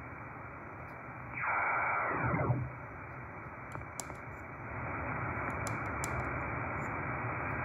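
Belka-DSP shortwave receiver in upper-sideband mode being tuned up the band through an external speaker: steady band hiss, with a signal swept past about a second and a half in, heard as a cluster of tones falling in pitch over about a second. A few light button clicks come around four and six seconds in, and the hiss gets louder about five seconds in.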